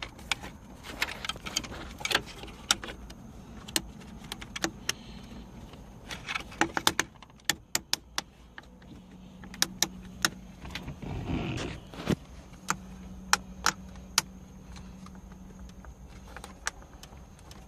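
Plastic trim on a BMW 650i's centre console being worked loose by hand: an irregular string of sharp clicks and creaks from tight retaining clips, with a brief rustle about two-thirds of the way through.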